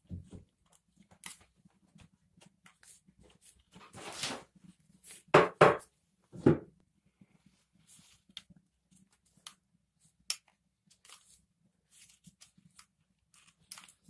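Hands handling a vacuum cleaner's plastic housing, motor and wiring during reassembly: scattered small clicks and rustles, with a few louder scrapes about four, five and a half and six and a half seconds in.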